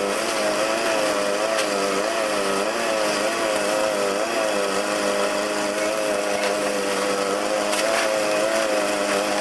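Dry-mix gunite (shotcrete) rig running: a steady, slightly wavering machine drone over a loud hiss of compressed air, with a few faint clicks.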